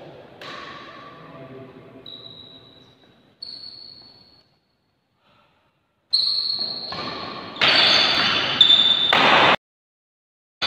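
Badminton court sound with short shoe squeaks on the court floor and faint voices, cut to silence about four and a half seconds in. About six seconds in, a loud intro sound effect begins: high ringing tones and then a whooshing rush that cuts off suddenly about a second before the end.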